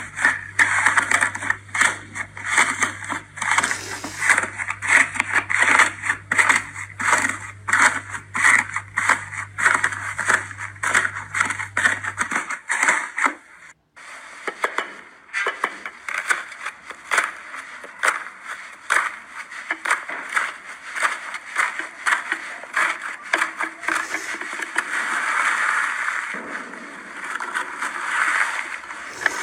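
Slime being squeezed and worked by hand: a dense, fast run of small crackles and clicks, broken by a short gap about fourteen seconds in.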